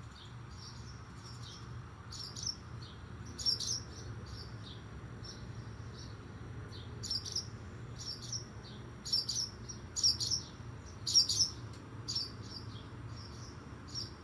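Small birds chirping: short, high chirps coming in scattered clusters every second or two, over a steady low hum.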